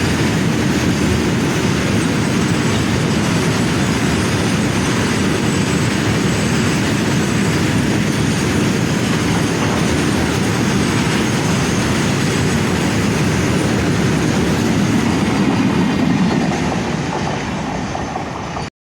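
Freight train rolling past: a steady rumble and clatter of wagon wheels on the rails, fading over the last couple of seconds and then cutting off suddenly.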